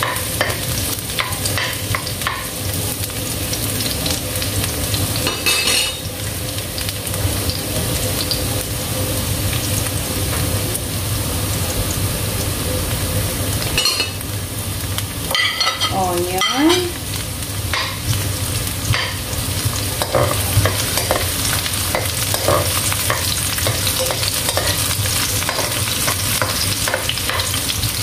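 Ginger strips and chopped garlic sizzling in hot oil in a wok, with a spatula stirring and scraping across the pan. About halfway through there is a brief scraping clatter as sliced onions are tipped in.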